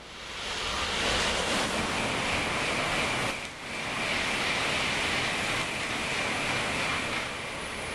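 Non-stop Nozomi Shinkansen bullet train passing through the station at speed: a loud rush of air and rail noise that builds within about a second and then holds steady, with a thin high whine running through it and a brief dip near the middle.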